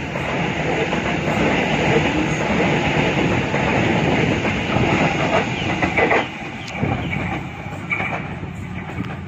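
Double-deck electric passenger train running past on the adjacent track, a steady rumble of wheels on rail with clacks over the rail joints. The noise eases about six seconds in as the last car goes by.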